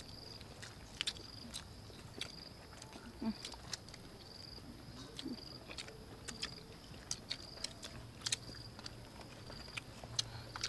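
Close-up eating sounds: soft wet chewing and sharp lip smacks as several people eat soft rice cakes, with a few faint closed-mouth hums. A faint high-pitched chirp repeats about once a second in the background.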